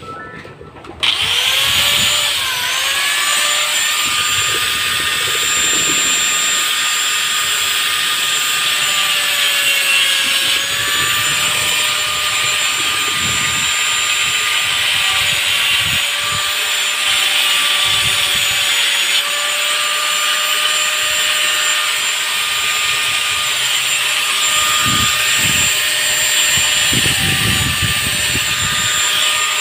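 Handheld electric power tool switching on about a second in, spinning up and then running steadily with a high whine as it smooths down the end of a plastic water pipe so it will fit into an elbow fitting. Its pitch sags briefly under load around ten seconds in.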